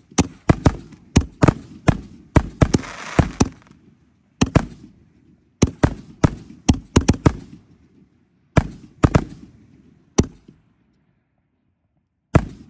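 Super Wave 4-inch canister shells going off: clusters of sharp, loud bangs, with a crackling stretch about three seconds in. The bangs thin out toward the end, and one last bang comes after a short pause.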